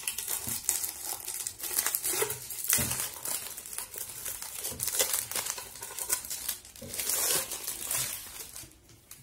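Clear plastic shrink-wrap crinkling and tearing as it is peeled off a roll of aluminium foil, an irregular crackle that stops shortly before the end.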